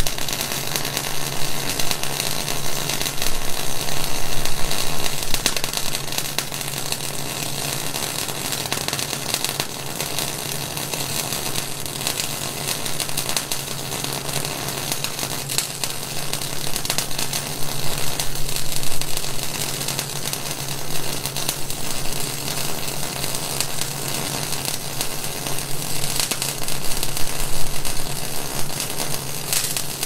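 Electric arc welding on steel: a continuous crackling, sputtering arc over a steady low hum, swelling louder a few times.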